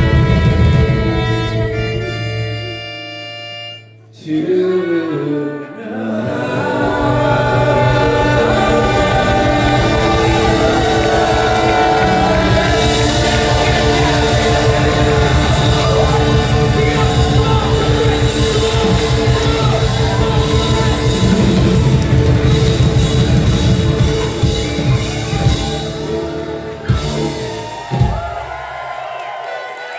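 Live rock band playing the closing section of a song, with singing over it; the music cuts out briefly about four seconds in and comes back in, then ends with a few sharp final hits near the end.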